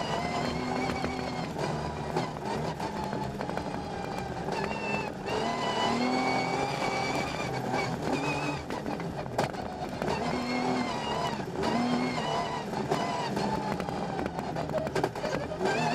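Rally car engine heard from inside the cockpit, revving hard and climbing in pitch, then dropping at each gear change, over and over, with steady road and tyre noise underneath.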